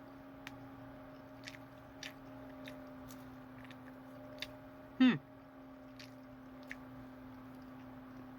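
A person chewing chicken nuggets, with scattered soft mouth clicks over a steady low hum. About five seconds in comes one short, loud sound that falls in pitch.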